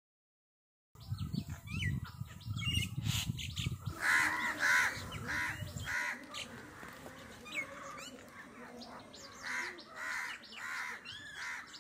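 Crows cawing again and again with small birds chirping, starting about a second in, over a low rumble for the first few seconds.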